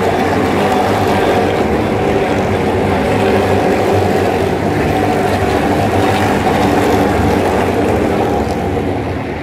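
EuroNASCAR stock cars' V8 engines racing past on the main straight, one car after another, a loud continuous engine sound.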